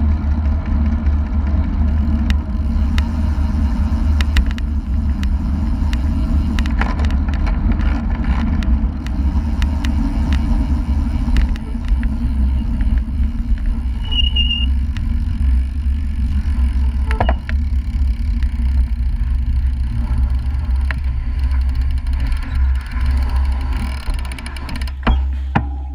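Wind rumbling over a bicycle-mounted action camera's microphone, with tyre noise, as the road bike rides at speed in a group; the rumble eases near the end as the bike slows almost to a stop. A short high squeak about halfway through.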